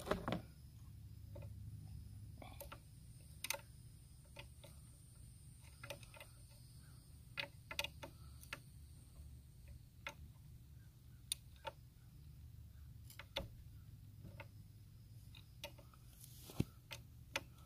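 Faint, irregular metal clicks of a wrench working the gear-oil drain-and-fill bolt back into a 3 hp Gamefisher outboard's lower-unit gearcase, over a low steady hum.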